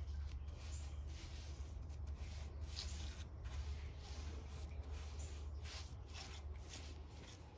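Paintbrush stroking polyurethane onto a wood slab: a series of soft, irregular brushing swishes over a steady low hum.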